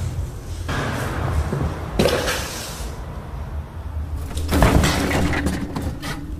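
Cats scrambling on a tile floor around a cardboard box, heard as three bursts of scuffling, rustling and knocking: one about a second in, one at two seconds and the loudest just after four and a half seconds. A steady low hum runs underneath.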